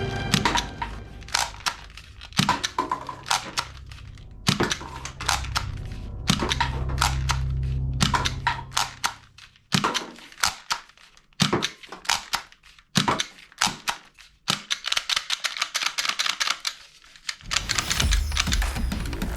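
Plastic toy guns clicking and snapping in quick, irregular series, as their mechanisms are worked and fired, with a low steady hum under the first half.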